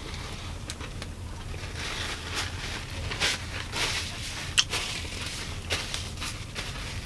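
Paper napkin rustling as hands are wiped clean after eating, with scattered small clicks, over a steady low hum.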